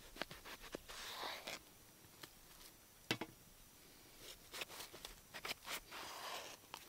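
Light clicks, taps and brief rustles of camp gear being handled, with one sharper knock about three seconds in.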